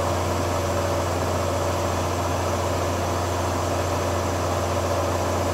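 Tornos Swiss-type sliding-headstock cam lathe running through its machining cycle: a steady low mechanical hum with a fainter constant whine above it.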